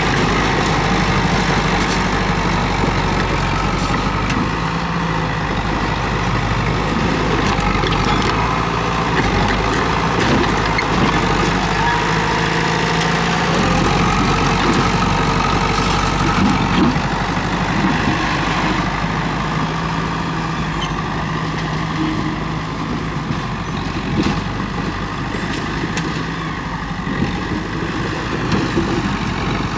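Komatsu D31P bulldozer's diesel engine running steadily, with scattered metallic clanks and rattles.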